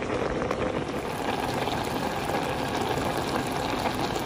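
Pots of vegetables in water at a rolling boil: a steady bubbling.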